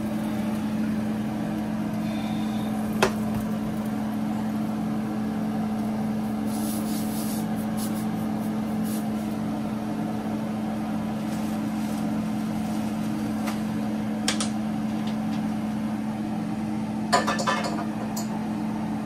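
A steady machine hum, with a few sharp clinks of kitchen utensils, pots or dishes: one about three seconds in, one past the middle and a short cluster near the end.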